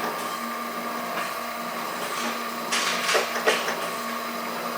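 Chevalier FSG-1020AD surface grinder running its automatic grinding cycle: a steady hum from the spindle and hydraulics, with a few short hissing, scraping bursts that are loudest a little before the middle. The cycle is on its final passes at zero infeed, heading into spark-out.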